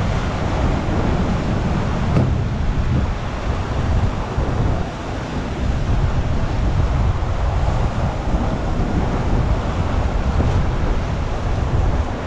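Sea surf breaking on rocks with wind buffeting the microphone, a steady rushing noise with a heavy low rumble.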